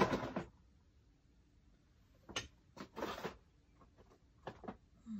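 Paper being folded and handled: a few short rustles and crinkles, with a sharp tap a little over two seconds in.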